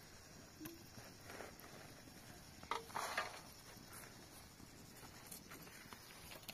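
Faint outdoor sounds: scattered light knocks and taps, with a short clatter about three seconds in.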